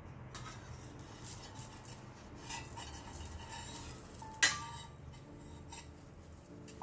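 Kitchen utensils clinking and scraping against dishes, with one sharp, louder clink about four and a half seconds in.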